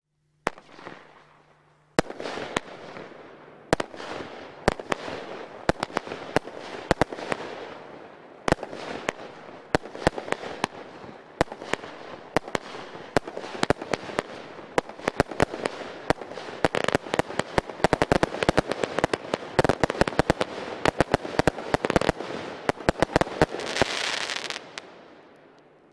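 Lesli 'Pulp Fiction' 56-shot fireworks cake firing: a single shot, then from about two seconds in a rapid, unbroken run of sharp launch shots and bursts. It builds to a dense crackling finale near the end before it stops.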